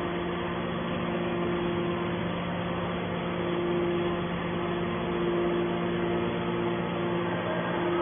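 Hydraulic scrap metal baler's electric motor and pump running steadily: a constant hum with a steady tone.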